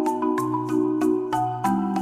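Background music: a mallet-percussion melody like a marimba over sustained chords and a bass line, with a steady beat of about four strikes a second.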